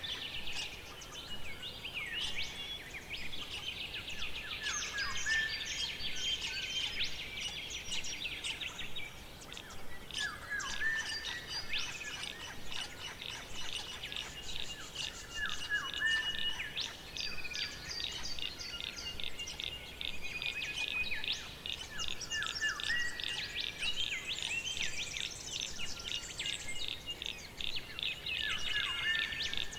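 Several birds singing and calling at once in a forest chorus: a dense layer of high chirps and rapid trills, with one short song phrase falling in pitch repeated about every five or six seconds.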